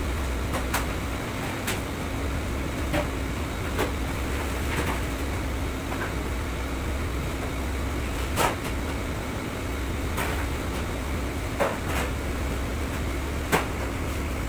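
Commercial kitchen background: a steady low hum of ventilation, with scattered clinks and knocks of metal cookware and utensils about once a second or two, the loudest about eight seconds in and near the end.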